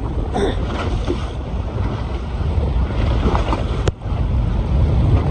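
Wind rumbling on the microphone over sea water rushing along the hull of a fishing boat. There is a single sharp click about four seconds in.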